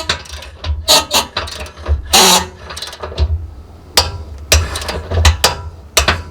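Click-type torque wrench ratcheting in irregular strokes as a large nut is run down and tightened to 45 ft-lb.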